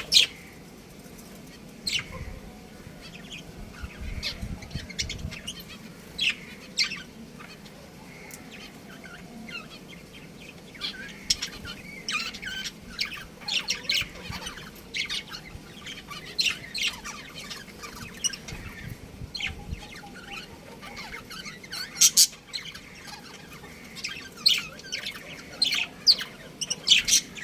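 Budgerigars chirping: many short, sharp chirps in irregular bursts, busiest in the second half.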